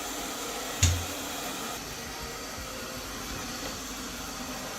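OKP Life K2 robot vacuum cleaner running with a steady, even whir from its suction motor and brushes. A single short thump sounds just under a second in.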